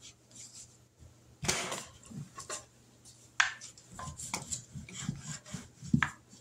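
Hands rubbing flour over a plastic cutting mat, with a sharp clatter about a second and a half in; from about halfway through, a rolling pin rolled back and forth over dumpling dough on the mat, with irregular rubbing and light knocks.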